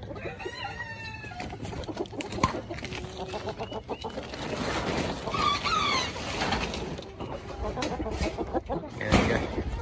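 Chickens clucking and calling, with a longer call near the start and a burst of squawks about halfway. A plastic tarp rustles and knocks as it is moved.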